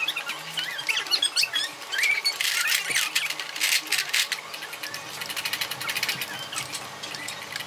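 Soft background music under children's high-pitched voices, with frequent small clicks and clatter of toy building parts being handled.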